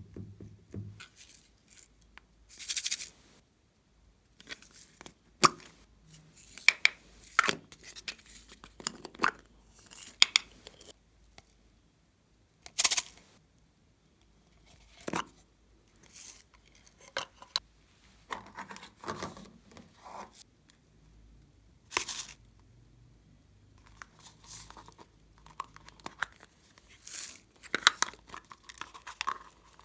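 Glossy slime being squeezed, stretched and poked by hand, giving irregular sticky pops and crackles, with a few sharper snaps and short pauses between them.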